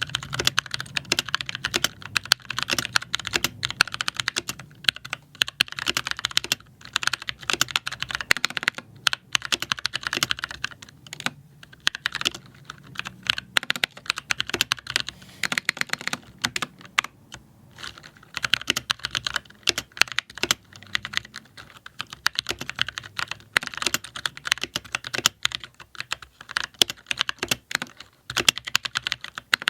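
Fast, continuous typing on a freshly built Nibble 65% mechanical keyboard whose key switches were hand-lubed with grease: a dense, uneven stream of key clacks with a few short pauses. This is the keyboard's first typing test after assembly.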